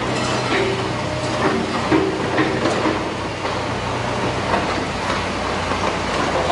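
Liebherr crawler excavator's diesel engine running steadily while its grapple lifts a length of steel tram rail, with repeated metal clanks and short squeals of steel scraping on steel.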